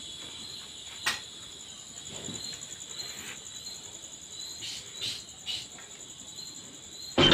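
Crickets chirping in a steady high trill, with a sharp click about a second in and a few soft taps around five seconds; music cuts in abruptly at the very end.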